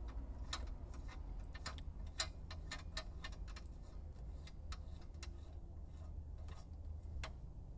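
Ratchet wrench clicking in short, irregular strokes while a castle nut is threaded back on and tightened on a tie rod end. The clicks come several a second at first and thin out after about three and a half seconds, with a low steady hum underneath.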